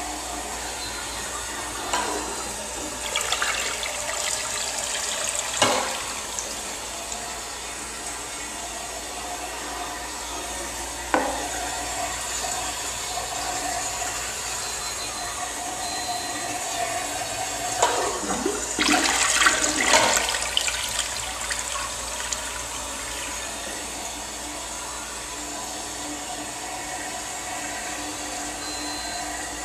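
Crane tank toilet flushing, then its tank refilling with a steady hiss and a faint whine. A few sharp clicks come through, and a louder rush of water comes about two-thirds of the way through.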